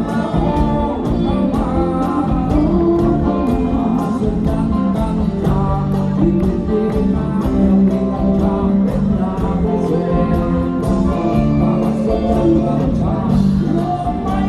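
Thai rock band playing live: guitars and a steady drum beat with a voice singing over them.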